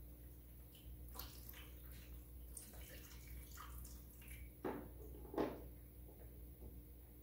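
Hands being washed in the plastic basin of a Serene Life SLCASN25 foot-pump portable sink: faint trickling and splashing of water, with two louder splashes a little past halfway.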